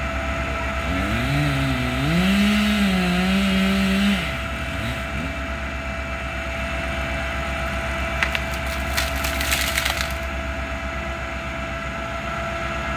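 Utility boom truck's engine running steadily, revving up about a second in and holding high for a few seconds before dropping back. About eight seconds in comes a short run of sharp cracking and splintering as the broken tree trunk is brought down.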